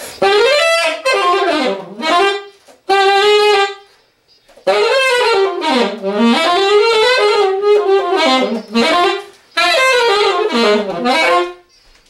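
Alto saxophone played solo in fast bebop lines, the pitch running quickly up and down in phrases broken by short pauses for breath.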